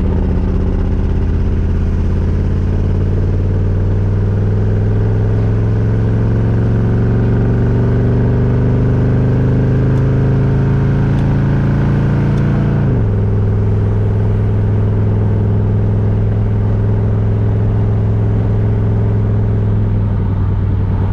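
1982 Chevrolet Camaro's engine and repaired exhaust heard from inside the cabin on the move: the engine note slowly rises in pitch as the car gathers speed, then falls suddenly about two-thirds of the way through and runs steady.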